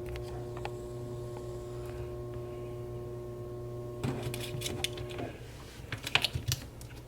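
A steady low electrical hum with a faint steady tone over it. From about four seconds in come light clicks and taps of small MacBook Pro parts being handled and fitted back in place.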